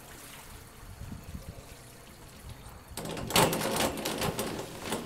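A diver's head-first entry into a swimming pool: a splash about three seconds in, followed by about two seconds of rushing, pattering water.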